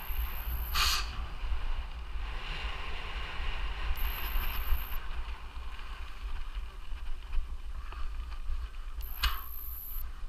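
Mountain bike ridden fast over a forest trail: a constant low rumble of bumps and wind on the microphone, with short spells of a high rear-hub ratchet buzz while coasting, about four seconds in and again near the end.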